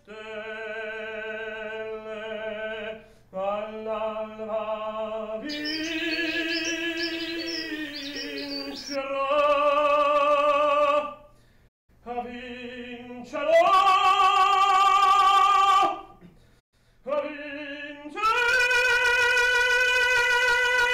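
Operatic singing: one voice holds long notes with vibrato in phrases a few seconds long, with short breaks between them, and the pitch climbs towards a long final note.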